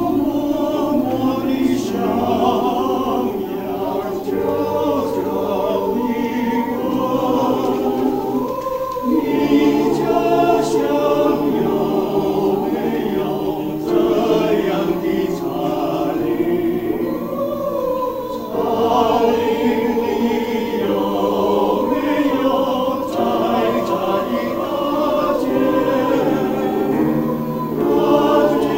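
Mixed choir of men's and women's voices singing together in parts.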